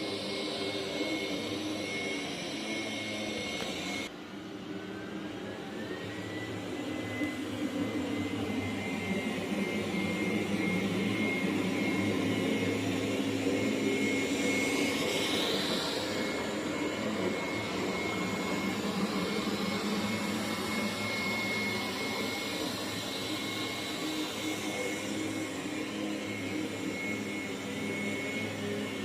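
Xiaomi Roborock Q7 Max robot vacuum cleaning, its suction fan running with a steady high whine. About four seconds in the sound drops abruptly and the whine glides back up as the fan spins up again, then runs steadily.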